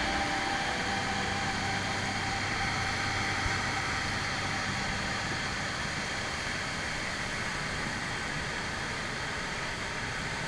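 Steady rushing of a waterfall and river with the water running high.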